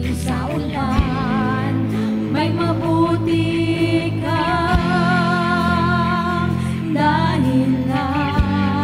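A worship song performed live, with voices holding long notes with vibrato over sustained keyboard and bass, and three single drum hits spaced a few seconds apart.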